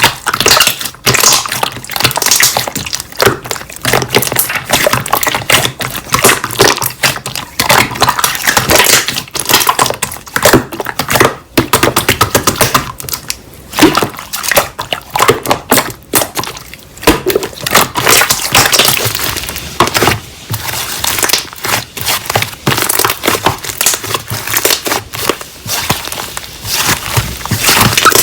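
Slime being squeezed, stretched and poked by hand, giving dense, irregular crackling and clicking pops.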